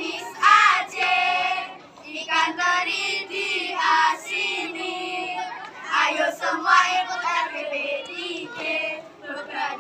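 A group of young scouts singing and chanting their troop's yel-yel cheer together in short phrases.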